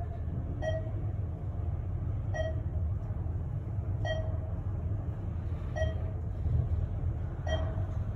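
Modernized Thyssenkrupp traction elevator car travelling downward: a steady low rumble of the car in motion, with a short ringing ping repeating about every 1.7 seconds.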